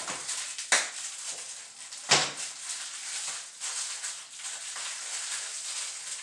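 Rustling and handling noise as a toilet seat and its small fittings are handled during installation, with two sharp knocks, the louder one about two seconds in.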